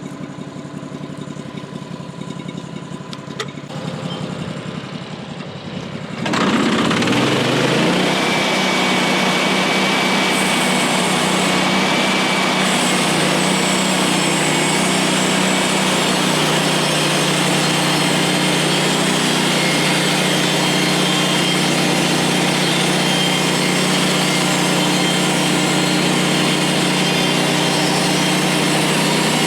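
Gas engine of a Woodland Mills HM136MAX portable band sawmill idling, then throttled up about six seconds in with a quick rise in pitch, running steadily at full speed to drive the band blade while sawing a pine log into beams.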